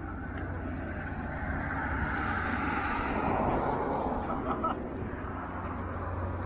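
A road vehicle passing, its noise swelling to a peak a few seconds in and falling away with a slight drop in pitch, over a steady low rumble of wind on the microphone.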